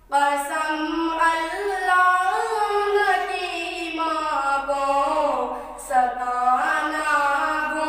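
A boy singing an Urdu nazam, a devotional poem, into a handheld microphone, without instruments. He holds long notes that bend up and down, with a short breath about six seconds in.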